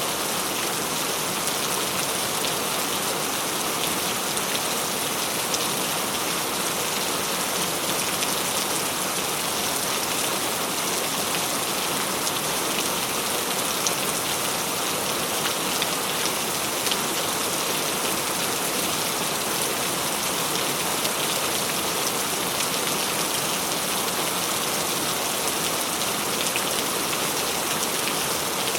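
Steady rainfall pattering on leaves, an even hiss with many small drop ticks.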